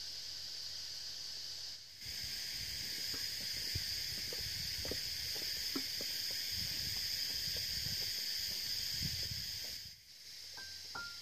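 Steady high-pitched drone of forest insects, with scattered footsteps and soft knocks from a person walking with a bucket and basket through the middle stretch. A few xylophone-like mallet notes of background music start near the end.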